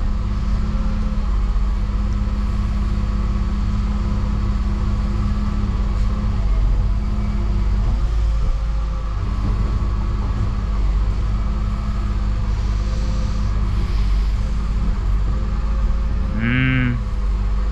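A 2018 Dennis Eagle Elite 6 bin lorry's diesel engine running steadily while stationary, heard from inside the cab, driving the hydraulics of the rear loader and compaction blade.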